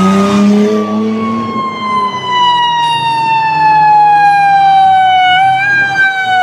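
Ambulance siren sounding one long tone that falls slowly in pitch, with a brief waver near the end. A lower steady tone sounds under it for the first second or so.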